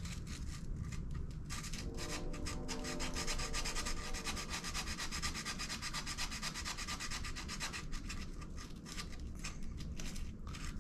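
Sandpaper rubbing in fast, rhythmic back-and-forth strokes on the ignition breaker points of a Honda CA160 twin, dressing contacts that are not making a good connection and so giving no spark.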